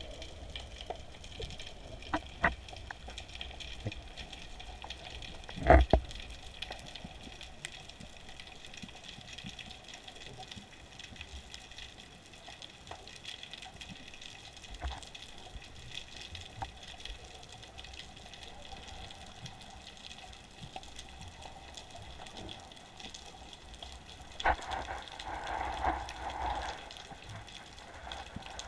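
Underwater ambience of a sea dive: a steady water hiss and hum with scattered faint clicks. There is a sharp knock about six seconds in, and a louder rush of water about three seconds before the end.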